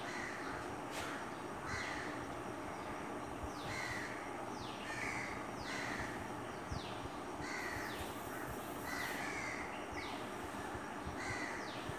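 Crows cawing over and over, short harsh calls about one a second, over a steady background hiss.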